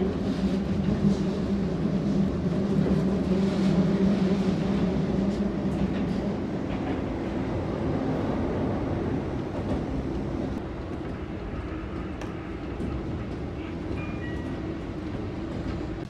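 Electric commuter train running, heard from inside the passenger car: a steady rumble of wheels on rails under a low motor hum, getting gradually quieter over the second half.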